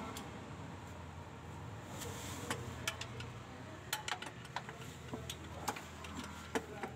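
Irregular sharp metallic clicks and clinks of a hand wrench working bolts at the propeller shaft and transmission under the car, over a low steady hum. The clicks come mostly in the second half.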